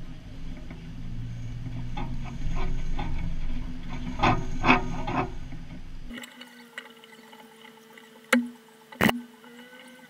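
Off-road vehicle crawling up a rocky trail, heard through a hood-mounted camera: a low engine-and-wind rumble with a few knocks from the rocks. About six seconds in the rumble drops away suddenly, leaving a quieter steady hum, with two sharp knocks near the end.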